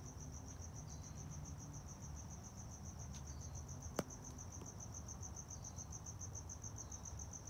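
Crickets chirping: a steady, high-pitched trill of fast, even pulses. A single sharp click about four seconds in.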